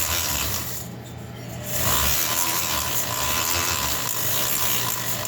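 High-speed rotary tool running a sandpaper-wrapped arbor against the aluminium cylinder's port edges, a steady abrasive whirring and rubbing, smoothing out stone-bit marks. It eases off briefly about a second in, then carries on.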